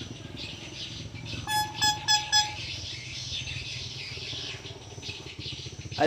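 A horn-like tone sounding in about four short, quick toots, about a second and a half in, over a steady low background hum.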